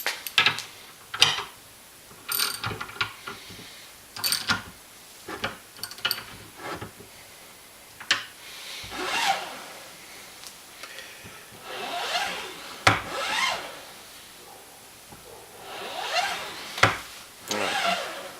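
Metal clinks and clicks from the lever and linkage of a Lee Challenger Breech Lock single-stage reloading press being fitted. These are followed by several slow strokes of the lever, with the ram grinding and rubbing in the press frame. It is a sign of slight binding that calls for lubrication.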